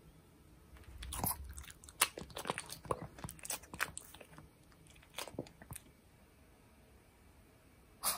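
Shih Tzu chewing a piece of ripe persimmon: a quick run of wet crunching and smacking bites, then a few lip-licking smacks that die away. One sharp click near the end.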